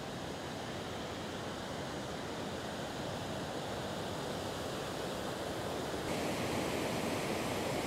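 Steady rushing of river water pouring over a weir and tumbling among rocks, growing slightly louder after about six seconds.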